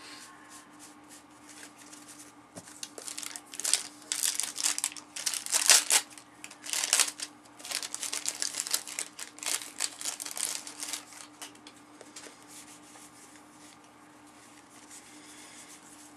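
Cellophane wrapper of a 1990-91 Fleer basketball jumbo cello pack crinkling and tearing as it is pulled open by hand. It comes in a run of rustling bursts from about three and a half seconds in until about eleven seconds in.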